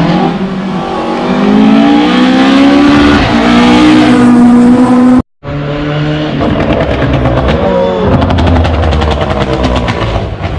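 Rally car engines at high revs: one car's engine climbs in pitch as it accelerates hard, then after a sudden brief dropout at an edit another car is heard running hard with rapid crackling.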